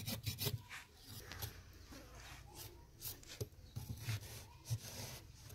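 Knife blade scraping and carving a notch into the edge of a dried clay-and-straw tandoor lid: a quick run of short rasping strokes at the start, then fainter, sparser scrapes.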